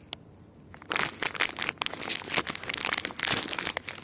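Plastic biscuit packet crinkling as it is handled: a couple of faint clicks, then dense, irregular crackling from about a second in.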